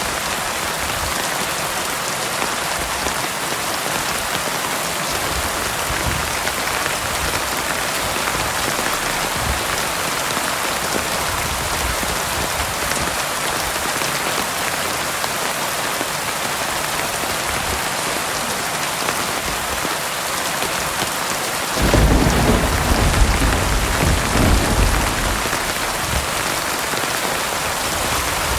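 Heavy rain falling steadily, with a low roll of thunder rumbling for about three seconds near the end.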